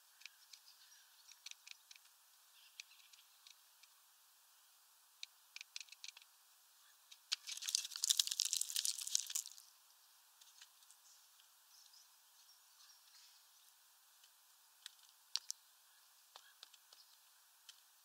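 Great spotted woodpecker pecking at sunflower seeds on a feeder tray: scattered sharp taps and clicks, with a dense flurry of rapid pecking and rustling for about two seconds midway, the loudest part.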